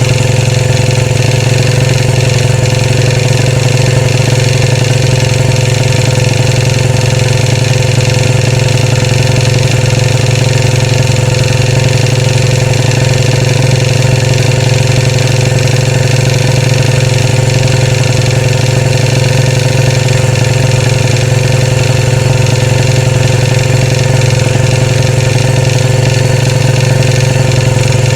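Royal Enfield Classic 500's single-cylinder engine idling steadily.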